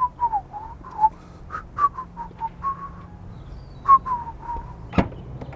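A man whistling a short tune of quick, mostly falling notes. Near the end comes one sharp click, the Cupra Formentor's tailgate latch releasing after a foot swipe under the rear bumper.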